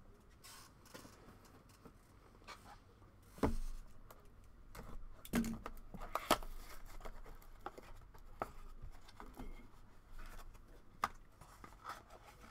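Trading cards and foil pack wrappers being handled: scattered rustling and light clicks, with a couple of louder soft knocks about a third and halfway through.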